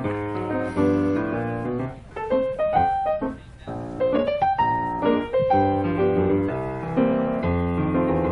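Background piano music: a melody of clear, changing notes over chords.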